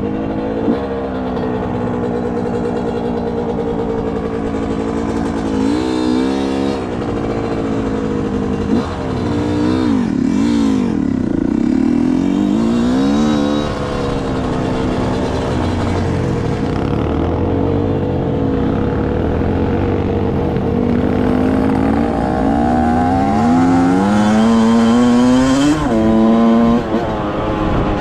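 Single-cylinder two-stroke engine of a 2005 Yamaha YZ125 dirt bike being ridden, its pitch repeatedly climbing and dropping as the rider revs it up and backs off.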